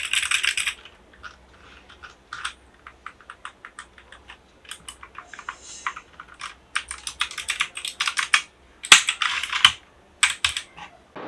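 Redragon K587 PRO mechanical keyboard with clicky blue switches being typed on: a quick run of keystrokes, then scattered single key clicks, then faster runs again, the loudest a little past two-thirds of the way in.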